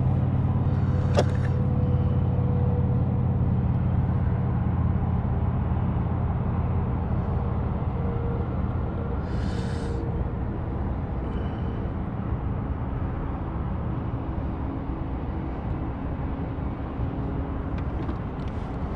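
A steady, low, engine-like hum that fades slightly, with a short click about a second in and a brief rustle about halfway.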